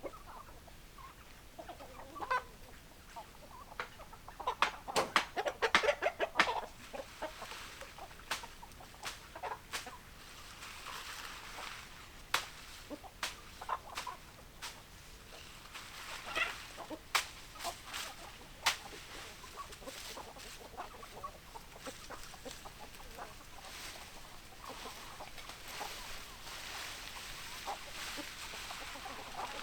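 Domestic hens clucking on and off, with a loud run of rapid clucking about five seconds in and scattered single clucks after it. Sharp clicks sound here and there among the calls.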